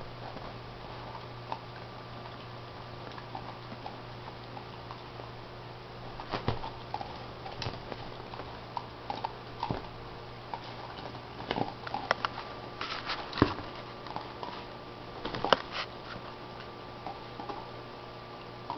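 Teething German shorthaired pointer puppy licking, mouthing and pawing an ice cube on a leather couch: irregular small clicks and knocks of the ice against teeth and cushion, busiest in the middle stretch.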